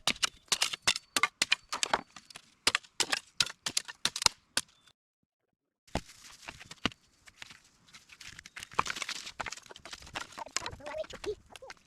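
Dry cedar shakes being broken up into kindling: a quick series of sharp wooden cracks and snaps. After a short break, quieter rustling with scattered light clicks.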